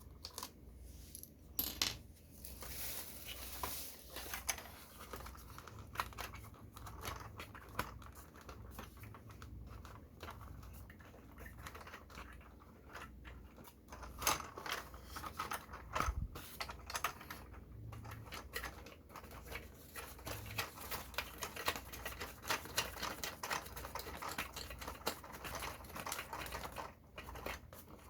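Hands handling a plastic toy model and its packaging: a steady run of small clicks, taps and rustles, with a faint hum underneath.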